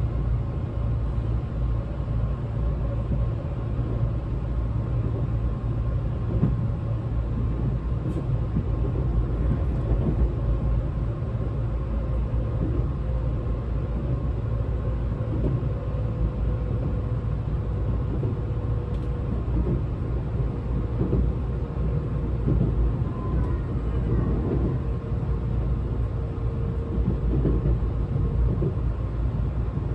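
Tobu 200 series limited express heard from inside the passenger car while running: a steady low rumble of wheels and bogies on the rails, with a faint whine that slowly sinks in pitch.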